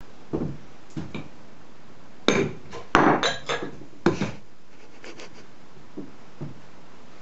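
Glass and china clinking and knocking as a glass jar and dishes are handled on a tea table. There is a cluster of sharp clinks between about two and four and a half seconds in, then a few lighter knocks.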